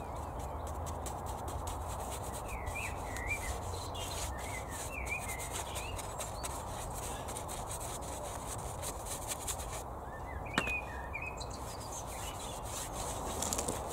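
A paintbrush scrubbing wood stain onto wooden fence pickets: a steady brushing scratch. Birds chirp briefly a few times, about three seconds in and again near the end.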